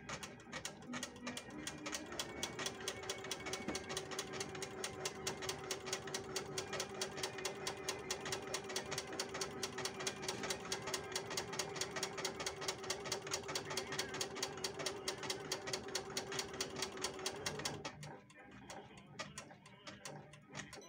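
Janome Memory Craft computerized embroidery machine stitching a design: a fast, even run of needle strokes over a steady motor whine. It stops abruptly about three seconds before the end.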